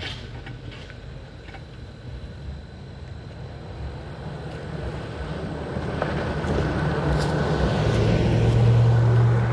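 Pickup truck crossing the railroad tracks and passing close by, its engine and tyre noise growing louder to a peak with a low drone near the end.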